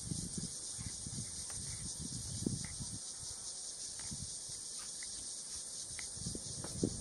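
Steady high-pitched chorus of insects in dry bush, with low rustling and bumps from the camera being handled that get louder near the end.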